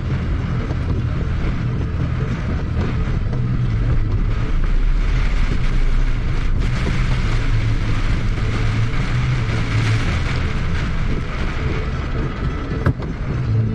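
Inside a car driving through a torrential downpour: a steady low rumble of engine and road with a hiss of heavy rain and wet tyres. A single sharp click comes near the end.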